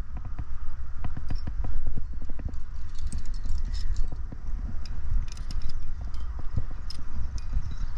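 Metal climbing gear clicking and clinking: carabiners snapping as the rope is clipped, and cams and carabiners rattling on a harness gear rack as one is pulled off, in many quick irregular clicks. A steady low rumble sits on the microphone underneath.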